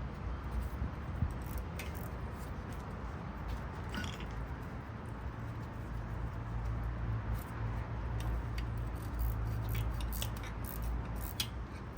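Light, irregular metallic clicks and taps of hand tools and small bolts being handled and threaded in, more frequent in the second half, over a steady low hum.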